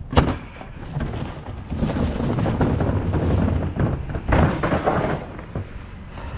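Footsteps on paving slabs and gravel, with a sharp knock just after the start, a stretch of rough rumbling clatter in the middle and another knock a little past four seconds.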